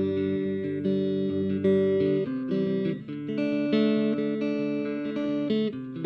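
Background music led by plucked guitar, playing a melody of clear picked notes.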